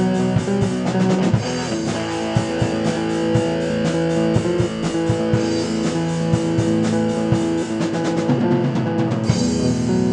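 Black metal music: guitars playing over a steady drum-kit beat with bass drum.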